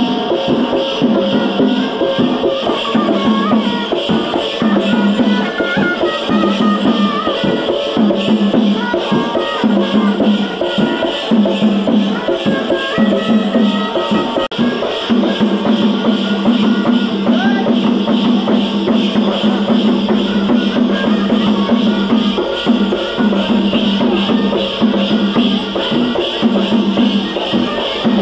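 Live folk dance music: hand-held frame drums beating a fast steady rhythm, with the continuous jingling of the dancers' large ankle bells over a steady low drone.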